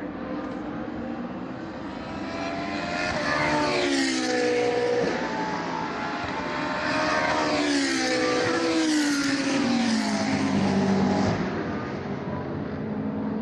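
GT3 race cars passing at speed, their engine notes dropping in pitch as each goes by. One passes about four seconds in, and another, louder pass runs from about eight to eleven seconds in.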